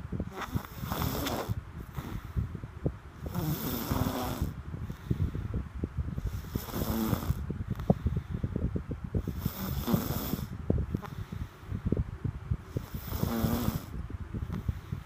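Snoring in a slow, even rhythm: five rasping snores about three seconds apart, with a low crackling rumble between them.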